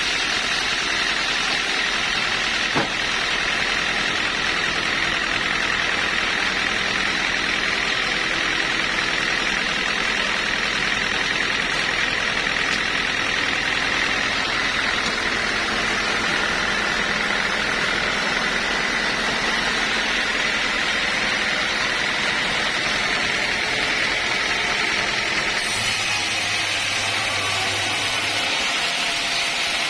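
Sawmill machinery running steadily: an even mechanical drone with a constant whine in it. There is a single click about three seconds in.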